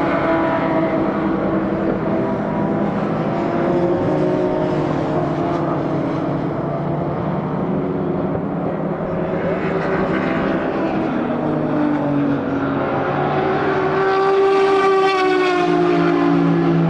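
Racing car engines running hard past the trackside, several cars overlapping with their pitch rising and falling as they accelerate and shift. One car comes loudest near the end, its note rising and then dropping as it goes by.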